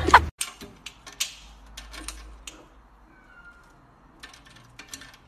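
Sparse light clicks and taps of a cat pawing at a metal latch on a wire cage door, with a cluster of clicks near the end. A brief faint high tone sounds about two and a half seconds in.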